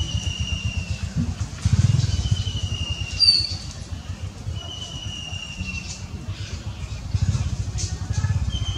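A small motor idling with a steady low rumble. Over it, a thin high descending whistle repeats every two to three seconds, and a short sharper high note comes a little past three seconds in.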